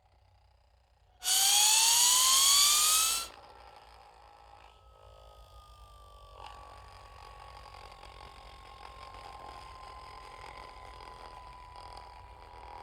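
Cartoon UFO zip-whistle sound effect. About a second in, a loud whistle rises in pitch for about two seconds and cuts off abruptly. A much fainter single whistle tone then sinks slowly in pitch over a light hiss.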